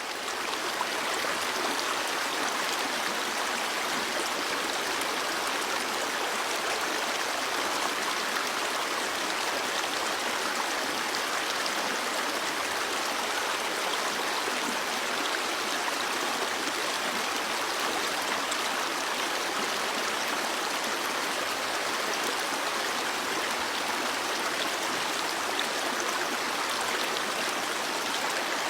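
A brook of flowing water, running steadily over rocks with an even rushing and babbling.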